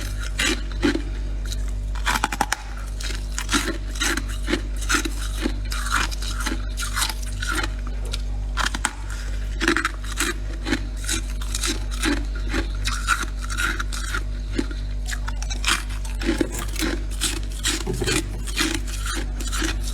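Freezer frost being bitten and chewed close to the microphone: a steady run of crisp, squeaky crunches, about two to three a second.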